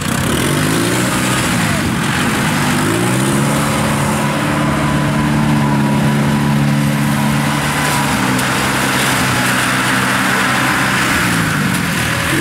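Kubota rice combine harvester's engine revving hard under load as its tracks work through deep mud: the engine note rises over the first few seconds, holds high, drops back about eight seconds in, then climbs again near the end.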